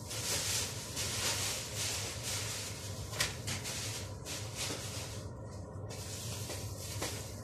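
Kitchen tap running into a sink, the water's hiss and splash uneven as hands work under the stream, thinning briefly about five seconds in. A steady low hum runs beneath it.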